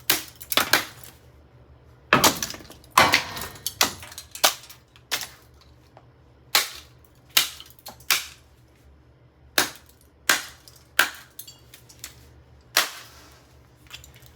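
Sledgehammer blows smashing plastic and metal microwave parts: about fifteen sharp strikes, mostly spaced under a second apart in runs with short pauses. About two to four seconds in the strikes come thickest, with pieces clattering after them.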